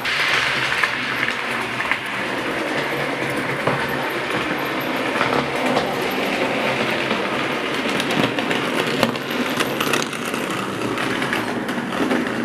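00 gauge model train running on the layout's track: a steady whirr from the motor and wheels, with scattered sharp clicks as the wheels cross the rail joints.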